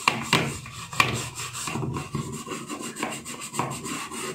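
A brush scrubbing the detergent dispenser of a washing machine with baking soda solution, in irregular scraping strokes, working off caked-on detergent residue.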